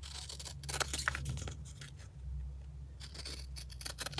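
Scissors cutting through paper, in two spells of crackly snipping: one over the first second and a half, another about three seconds in.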